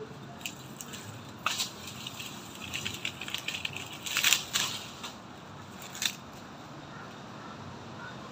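Dry sticks and coconut-frond stalks snapping and crunching in a few short bursts as they are broken and fed into a wood fire; the loudest burst comes a little past the middle.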